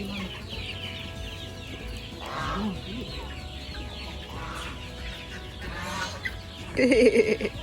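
A backyard flock of free-range poultry clucking, with a steady mass of high chirping calls throughout. One loud squawk comes about seven seconds in.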